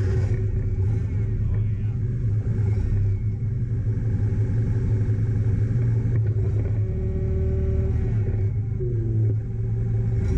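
Propane-fuelled engine of an Allis Chalmers C50 forklift running at a steady idle, just started after sitting for about six months. Its speed sags briefly near the end.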